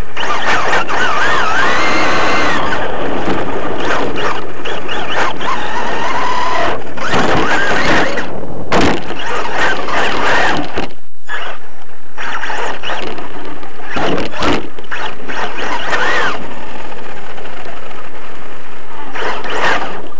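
Radio-controlled off-road car's motor and drivetrain heard from on board: a whine that rises and falls with the throttle, over rattling and knocks as the car runs over the bumpy dirt track. The sound drops out briefly about eleven seconds in.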